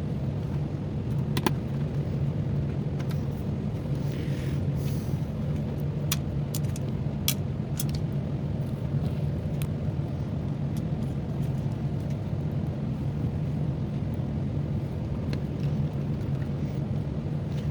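A steady low hum throughout, with scattered small sharp clicks and taps from screws and small laptop parts being handled, most of them in the first half.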